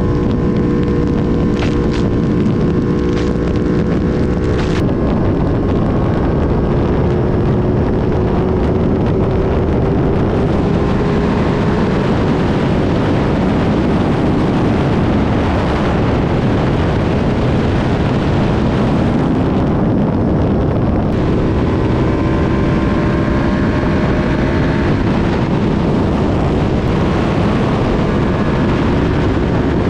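Ducati Panigale V2's 955 cc twin-cylinder engine running at freeway speed, with heavy wind rush on the microphone. The engine note is steady at first, then from about five seconds in it is mostly buried under the wind while its pitch slowly rises. It comes through steady again past the twenty-second mark.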